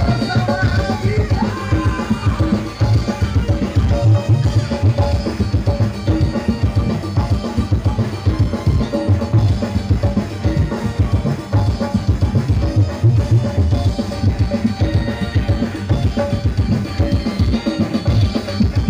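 Live band playing loudly: a drum kit keeping a steady, busy beat on bass drum and snare under electric guitar, bass guitar and keyboard.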